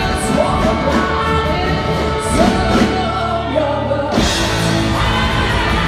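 Live rock band playing, with a lead singer over electric guitars, drums and violin. The low end thins out briefly, then the full band comes back in with a hit about four seconds in.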